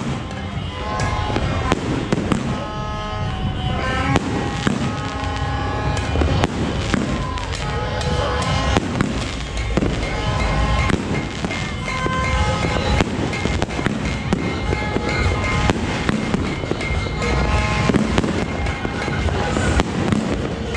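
Aerial fireworks bursting again and again, with sharp bangs at uneven intervals and crackle in between. Music plays behind them.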